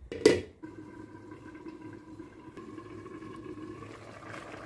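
A short knock of the glass pot lid about a quarter second in, then the steady bubbling of chicken stock in the pot of rice as it starts to boil.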